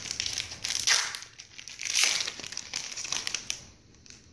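Foil wrapper of a Pokémon trading-card booster pack being torn open and crinkled by hand, with two louder bursts about one and two seconds in; the crinkling dies away near the end.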